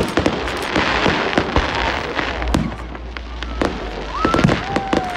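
Fireworks display: aerial shells bursting in a rapid run of sharp bangs, with a stretch of crackling about a second in.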